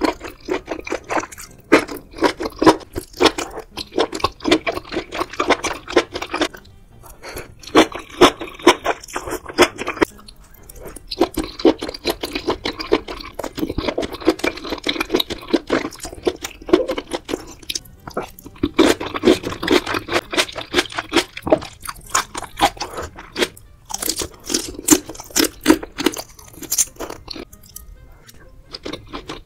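Close-miked eating of spicy seafood hot pot: wet chewing, crunching and slurping as fish cake, octopus and beef are bitten and chewed, in bursts with short pauses.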